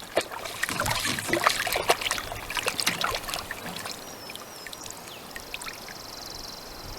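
Water splashing and trickling, busiest in the first few seconds and then dying down to a faint dribble, with small knocks mixed in. A faint high whistle comes about four seconds in, and a high steady trill near the end.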